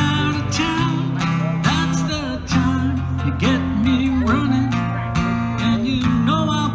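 Acoustic guitar strummed steadily in a song, with low bass notes held underneath and a singing voice carrying a wavering melody over it.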